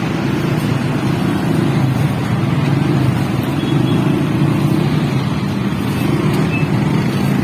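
Car engine running steadily with road noise as the car drives along, a continuous low hum.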